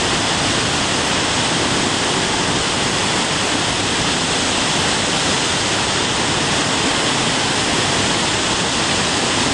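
Muddy flash-flood water pouring over a rock ledge waterfall in a desert wadi: a loud, steady rush.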